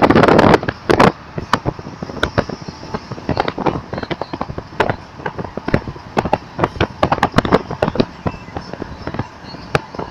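Wind buffeting the microphone in a moving car, cutting off about half a second in, then a run of irregular sharp clicks and crackles over a low road noise.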